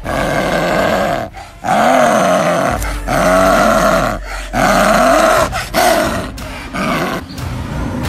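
Snow leopard meowing: a string of about six loud, drawn-out calls, each rising and then falling in pitch, with short breaks between them.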